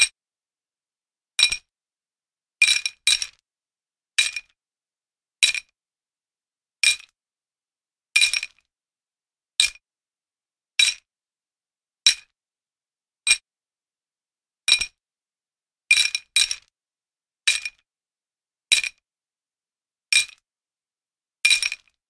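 Metal chain jingling in short, separate shakes, roughly one every second and a half, some in quick pairs, each a bright metallic clinking that dies away quickly. There is silence between the shakes.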